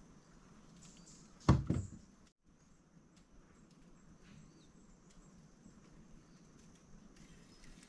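Two quick knocks close together about one and a half seconds in, gear knocking on the small boat as the angler handles his rod and reel. Otherwise faint, steady outdoor background.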